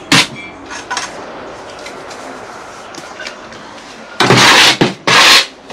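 Steel brick trowel knocking and scraping on brick and mortar during bricklaying: a sharp knock at the start, a few lighter taps about a second in, then two long, loud scrapes near the end.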